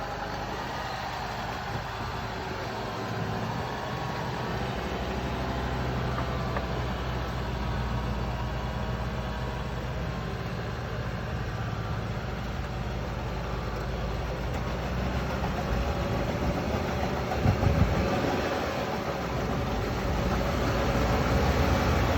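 The Ranger's engine runs steadily and grows louder toward the end. A short cluster of knocks comes about three quarters of the way through.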